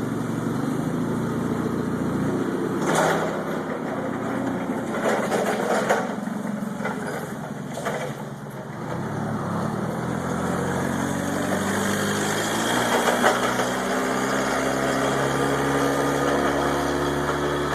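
Toyota forklift engine running after a repair to a broken valve spring, the cause of its miss. A few sharp knocks come in the first half, and the engine speed climbs slowly in the second half.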